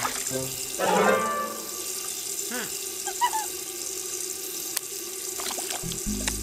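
Cartoon sound effects: a tap running steadily into a washbasin, with short wordless character vocal noises and a few quick clicks over it. A low drone comes in near the end.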